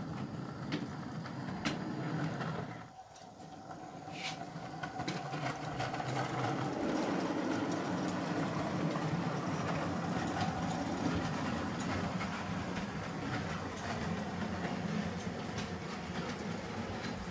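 O gauge model train running along the track: a steady rumble with scattered clicks, dipping briefly about three seconds in.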